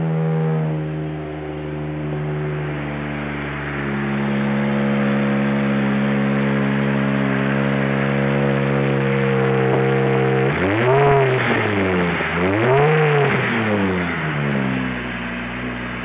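Turbocharged RB25 straight-six engine in an R30 Skyline idling steadily, then blipped twice about ten and twelve seconds in, each rev rising and falling quickly back to idle.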